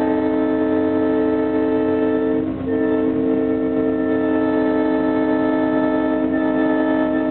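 Former B&LE EMD F7 diesel locomotive's multi-chime air horn, heard from inside the cab. It sounds one long blast, breaks off briefly about two and a half seconds in, then sounds a second long blast that runs on to the end.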